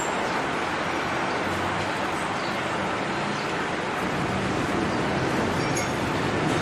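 Steady background noise of a busy street market, an even hum like nearby traffic, with no distinct events.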